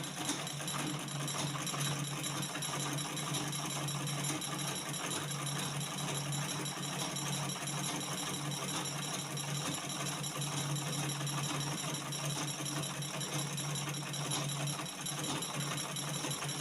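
Manual (treadle) Butterfly sewing machine running steadily as it stitches a seam along fabric.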